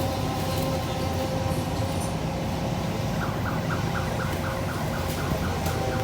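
Komatsu PC200 excavator's diesel engine running steadily. From about three seconds in, a rapid series of short, high chirps sounds over it, about four a second.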